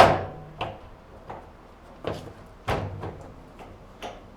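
Sheet-metal dryer panel parts knocking and clunking as they are fitted into their notches: about six sharp knocks, the loudest at the very start and another strong one a little past halfway.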